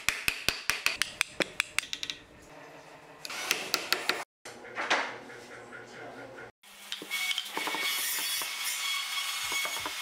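Hardwood joint pieces being knocked and fitted together: a quick run of sharp wooden taps, about five a second, for the first two seconds, then a few more taps. Wood rubbing and handling against the bench follows near the end.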